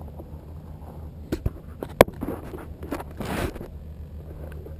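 Handling noises on the model plane's camera mount: a couple of light clicks, a sharp knock about two seconds in, then a stretch of rustling and scraping as the plane is set down in dry grass, over a low steady background rumble. The ducted fan is not running.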